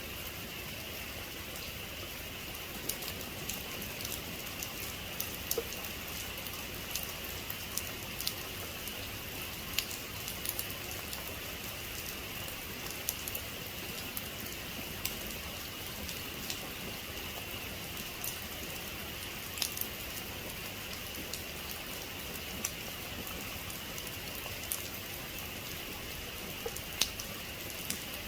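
Heavy rain falling steadily, an even hiss with many sharp, irregular ticks of individual drops hitting a surface.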